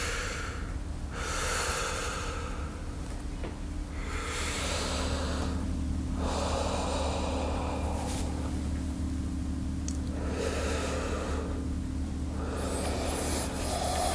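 A man taking slow, deep breaths in and out through the mouth, about six audible breaths with short pauses between them, as for a doctor's stethoscope chest examination. A steady low hum runs underneath.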